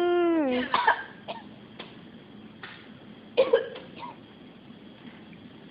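A person having a nasogastric tube passed through the nose gives a short held groan that drops in pitch at the end, then coughs and clears the throat several times, a reaction to the tube in the throat.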